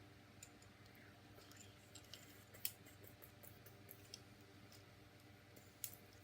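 Faint, scattered clicks and taps from the plastic parts of a Transformers Solus Prime action figure being moved and set into place during its transformation, the loudest about two and a half seconds in, over a steady low hum.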